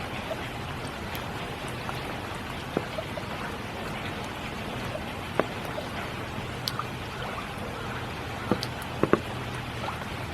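Spring rain falling steadily, with individual heavier drops tapping now and then, a few louder ones near the end.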